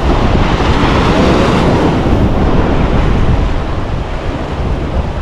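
Ocean surf washing against a rocky breakwater, with wind buffeting the microphone. The wash is loudest in the first couple of seconds, then eases.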